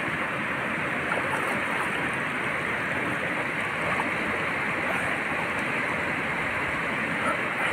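Steady rushing of a mountain stream running over small rapids into a pool.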